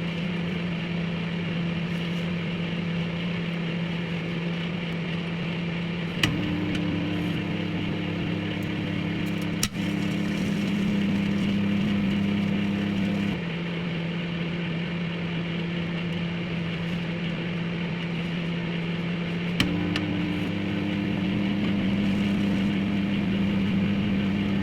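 Microwave oven running: a steady hum with low tones that shift every few seconds, and a few sharp clicks.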